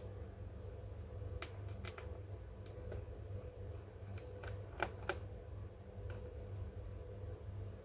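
Scattered small clicks and taps of hands and tools working on a laptop, over a steady low hum; two sharper clicks come close together about five seconds in.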